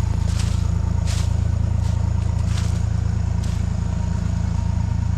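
New Holland LX865 skid-steer loader's diesel engine running steadily, with a few brief clatters or scrapes.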